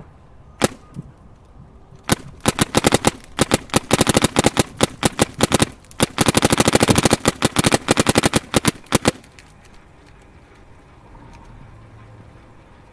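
Planet Eclipse Etha 2 paintball marker firing: a single shot, then rapid strings of shots for about seven seconds with a short pause in the middle. The marker is running on a 68/4500 compressed-air tank that is almost empty.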